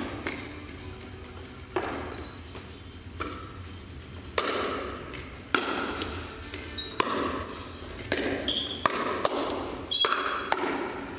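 Pickleball rally: paddles popping against a hollow plastic ball about ten times, roughly a second apart and quicker toward the end, each hit echoing in a large gym hall. A few short high squeaks fall between the hits.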